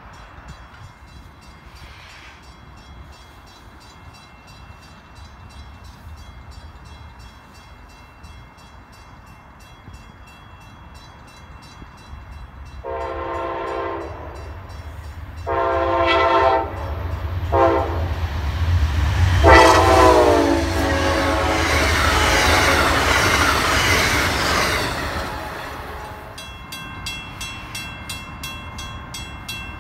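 Amtrak P42DC diesel locomotive horn sounding the grade-crossing signal of long, long, short, long as the train approaches. The train then rushes past loudly for several seconds. Near the end a grade-crossing bell rings steadily.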